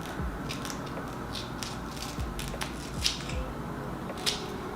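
Scissors snipping through the excess lace of a lace front wig: a series of small, irregular snips.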